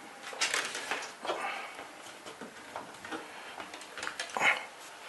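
Electrical cable wires being handled and pushed into a deep wall box: irregular rustling and scraping with small clicks, and a louder scrape about four and a half seconds in.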